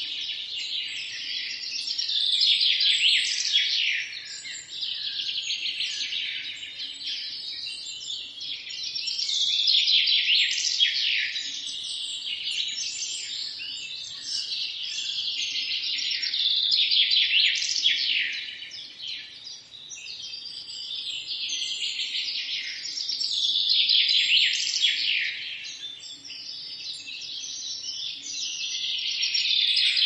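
A chorus of several songbirds singing at once, dense overlapping chirps and trills that swell louder and fade back every several seconds.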